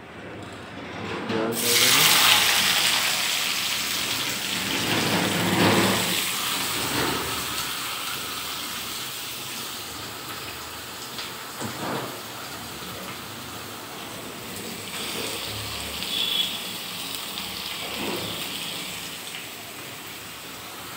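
Hot oil in a steel kadai sizzling: a loud hiss that starts suddenly as something goes into the oil and slowly dies down, with a few knocks of a spoon or pan.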